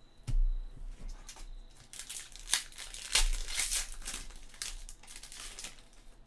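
A trading-card pack wrapper being torn open and crinkled in the hands, a dense run of crackling from about two seconds in, after a soft bump near the start.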